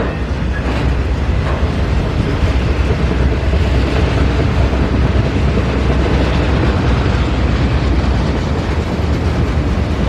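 Train passing close by: a steady, loud rumble of wheels on rail with a few faint clanks in the first second or so.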